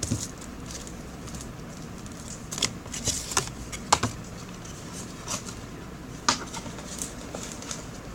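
Scattered light clicks, taps and rustles of small objects being handled, with a cluster of sharper clicks about three to four seconds in.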